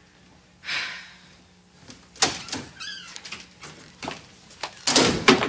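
Door sounds: a short rushing hiss about a second in, a sharp bang a little after two seconds, then a brief wavering creak. Several clicks and knocks follow near the end.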